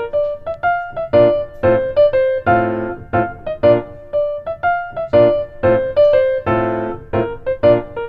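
Background music: a light, bouncy piano tune with a steady beat of short notes and chords.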